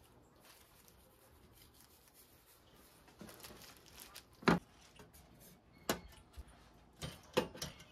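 Quiet room tone, then a few sharp clacks of kitchen things being handled on a stainless steel counter, the loudest about halfway through.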